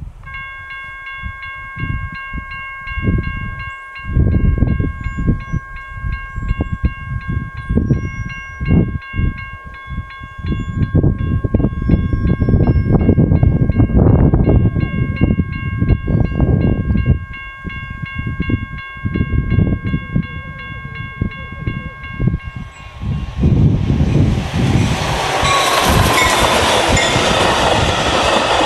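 Railroad crossing warning bell ringing in steady repeated dings while the gates lower, with wind buffeting the microphone. The bell stops about 22 seconds in, and a Metra commuter train of bilevel gallery cars passes close by, its wheels clacking over the rails.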